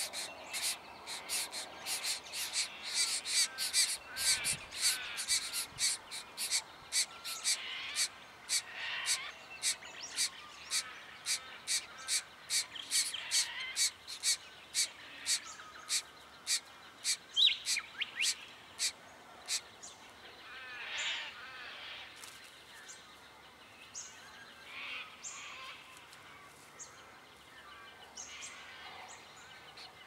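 Diamond firetail nestlings begging at the nest: rapid, harsh, ticking calls, about three or four a second. The calls thin out to scattered ones about twenty seconds in.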